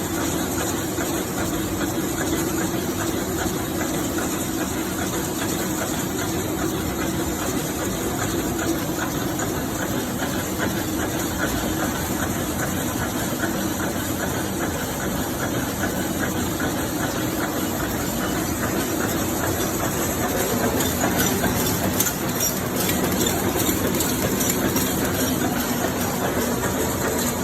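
Automatic packing machine for single plastic spoons running: a steady, rapid mechanical clatter over a constant hum, growing slightly louder about twenty seconds in.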